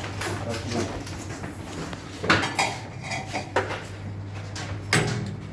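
Metal clanking and clinking as tools and a bent ATV wheel rim are handled for straightening, with a few sharper knocks, over a steady low hum.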